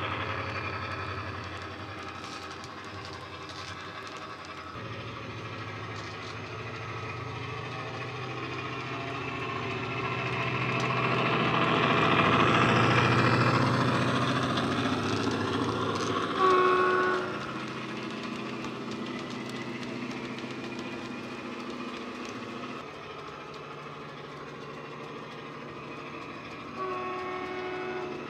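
Model Class 68 diesel locomotive's DCC sound decoder playing the JMC Class 68 sound file through an EM2 speaker. The diesel engine sound runs and grows louder as the locomotive passes, about halfway through. A short horn blast sounds about 16 seconds in and another near the end.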